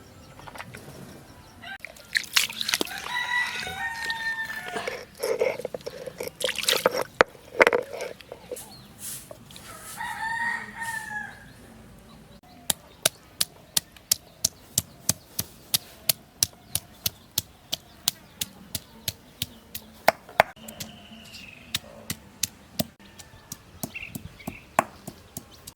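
A rooster crowing twice, each crow long and drawn out, with loud sharp knocks between the crows. After that comes a steady run of sharp knocks, about two a second.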